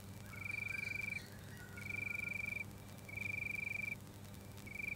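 Electronic beeping: a high, fluttering tone sounding in bursts of just under a second, four times, about every second and a half.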